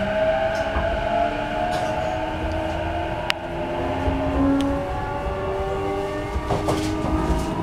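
Interior running sound of a JR E233-6000 series electric train: the traction motors and inverter whine in several tones over the rumble of wheels on rail, the lower tone slowly rising in pitch as the train gathers speed. A couple of sharp clicks stand out in the middle.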